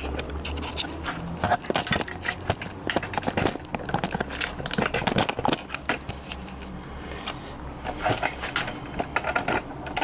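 A screwdriver's retail packaging being unpacked by hand: irregular crackling, scraping and clicking from handling.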